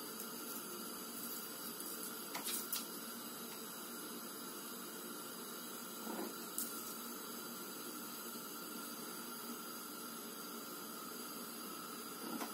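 Steady background hiss of a quiet room, with a few faint soft taps a little after two seconds, about six seconds in and near the end.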